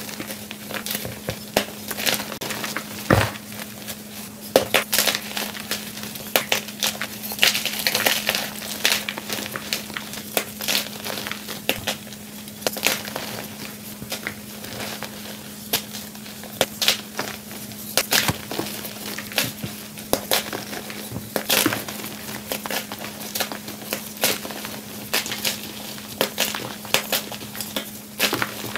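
White gym chalk blocks crushed and crumbled between bare hands into powder: dense, irregular crunching and crackling.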